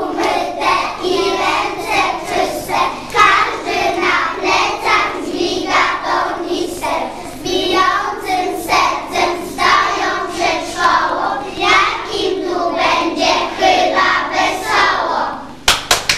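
A group of young children singing a song together. Near the end the singing stops and clapping breaks out.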